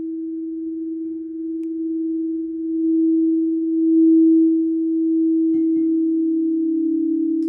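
Singing bowl sustaining one steady low tone with a slight waver, slowly swelling and easing in loudness.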